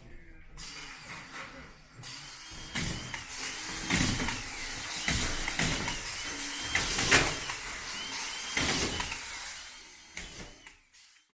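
Power tool whirring in short runs with a wavering whine, mixed with sharp knocks and clatter. It grows louder about two seconds in, then fades and cuts off near the end.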